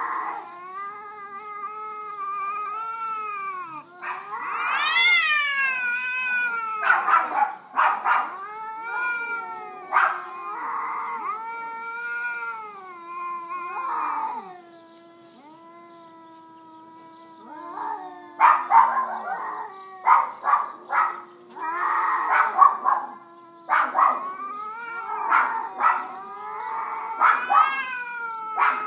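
Domestic cats caterwauling in a fight: long, drawn-out yowls that rise and fall in pitch, broken again and again by harsh noisy bursts and sharp spits.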